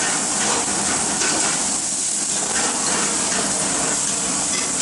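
Lobster pieces frying in a pan with cream over a gas burner, making a steady sizzling hiss.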